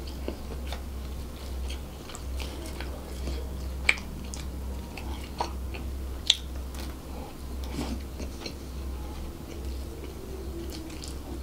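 Close-miked chewing of a mouthful of fried rice, with scattered small wet mouth clicks and two sharper clicks about four and six seconds in, over a steady low hum.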